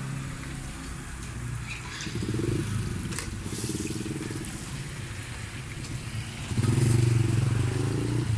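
Motorbike engine running at low revs close by, growing louder about six and a half seconds in.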